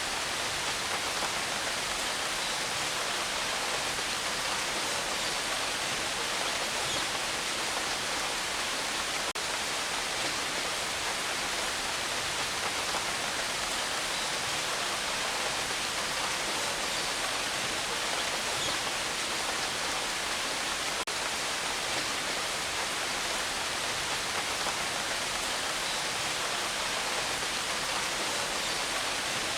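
Steady rain, an even hiss with no thunder, unchanging in level throughout.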